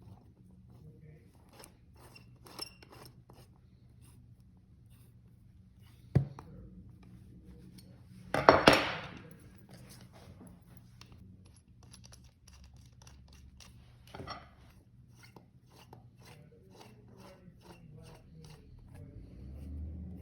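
Small metal parts clicking and clinking as the two halves of a split scooter rim are fitted and bolted together over the new inner tube, with a sharp knock about six seconds in and a brief, louder rattle near nine seconds.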